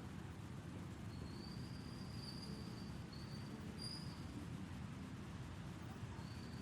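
Faint outdoor ambience: a steady low rumble with several thin, high, drawn-out whistled notes, one long one about a second in, shorter ones around three and four seconds, and another near the end.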